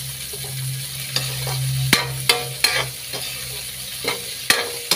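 Spatula scraping and knocking against a wok while aromatics sauté in hot oil with a steady sizzle. Several sharp clacks of the spatula on the pan come through, over a low steady hum.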